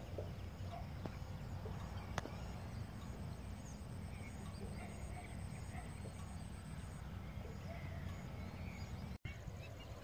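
Outdoor ambience of a steady low wind rumble on the microphone, with scattered faint bird calls and a faint high-pitched pulsing chirp repeating about twice a second. There is a single sharp click about two seconds in, and the sound cuts out for an instant near the end.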